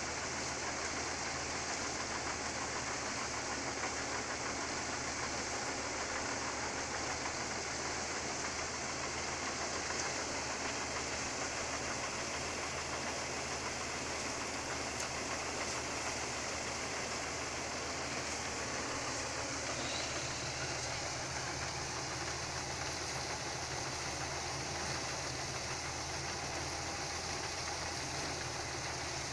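Rice threshing machine running steadily as rice sheaves are fed in: a low, even engine hum under a constant rushing noise.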